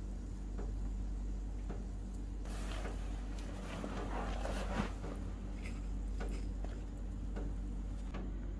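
Potato slices frying in oil in a miniature steel kadai, with a faint crackle for a couple of seconds about 2.5 s in. Scattered light clicks sound over a steady low hum.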